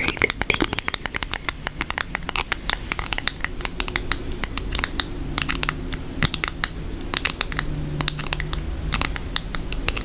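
Long acrylic nails tapping and scratching on a small paper card close to the microphone: a fast, irregular run of crisp clicks and scratches.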